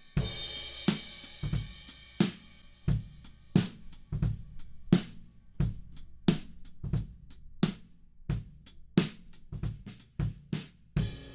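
Drum kit recording played back during mixing: a steady groove of kick, snare and hi-hat that opens with a cymbal crash, with another crash near the end.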